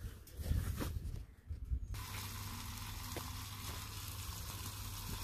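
A few low knocks, then a steady sizzle of steaks frying in garlic butter in a pan over a fire, which cuts in abruptly about two seconds in.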